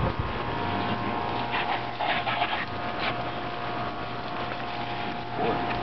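Steady hiss of water spraying from a hose sprayer nozzle as a dog is rinsed off.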